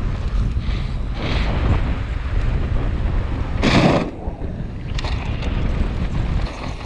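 Wind buffeting a helmet-mounted action camera's microphone at riding speed, over the steady rumble of mountain-bike tyres rolling on a dirt jump line. A short, loud burst of noise about four seconds in.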